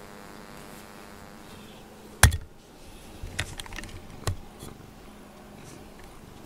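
A sharp knock on the camera about two seconds in, then a few lighter clicks and taps, as a cat noses and sniffs right up against the lens.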